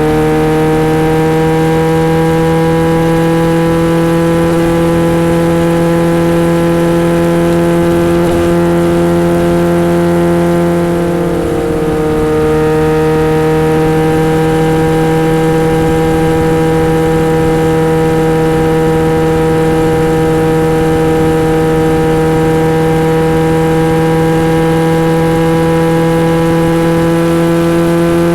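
Kawasaki Z900RS inline-four engine through a Misty Kintaro short-pipe exhaust with a 70 mm L silencer, running steadily under way with its note slowly rising. About eleven seconds in it eases off briefly and steps in pitch, then carries on steadily.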